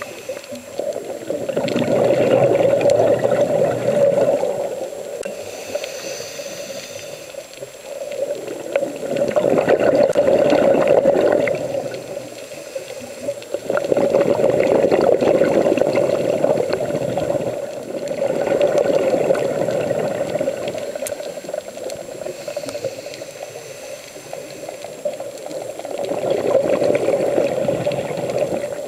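Scuba diver's exhaled bubbles rushing out of the regulator, a bubbling rush in bursts of about three seconds that comes back every five seconds or so with each breath.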